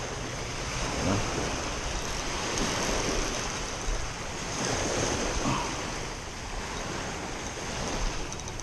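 Small waves washing in and draining back over a pebble shoreline, the surf swelling and easing every second or two.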